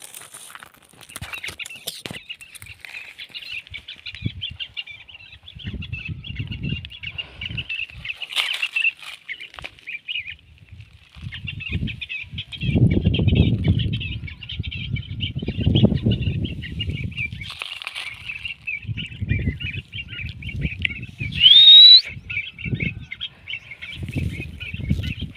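Captured quail flapping and fluttering its wings in bursts while held in the hand, over a steady high chirring. About 21 seconds in there is one short, sharp rising squeak, the loudest sound.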